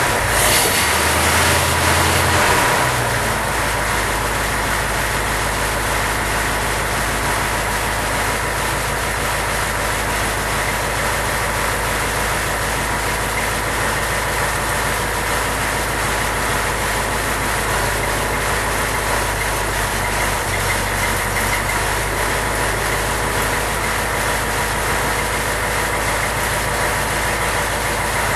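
Rebuilt 1927 Cadillac 314 flathead V8 engine running: its revs fall away in the first two or three seconds, then it settles into a steady idle.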